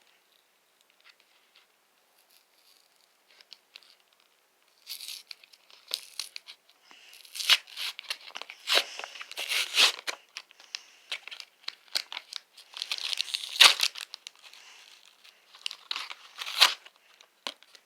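Pokémon card packaging being torn open and crinkled by hand, in many short crackling tears that start about five seconds in and go on busily to the end.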